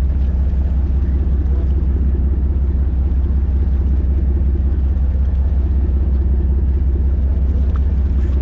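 A fishing boat's engine running steadily, a low, even rumble with no change in pitch.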